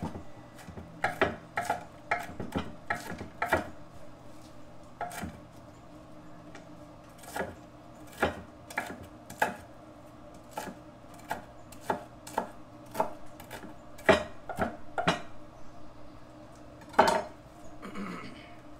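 Kitchen knife chopping on a wooden cutting board: irregular sharp knocks, some in quick runs, with a short scrape across the board near the end.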